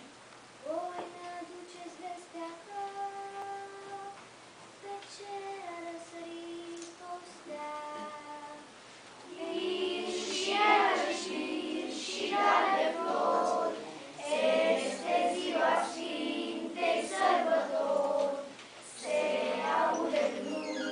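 Children's choir singing a Romanian Christmas carol (colindă) unaccompanied. A quieter single melody line of held notes comes first, and the full group joins in louder about ten seconds in.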